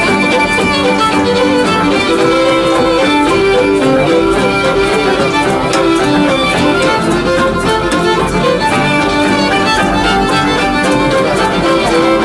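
Fiddles playing a tune together in a jam session, quick bowed notes over a guitar accompaniment.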